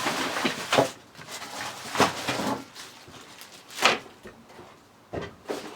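Handling noise from unpacking: about five separate knocks and scrapes as boxes and parts are picked up and set down.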